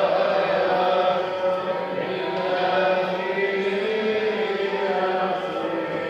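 A group of voices singing a liturgical chant together, with long held notes that shift slowly in pitch.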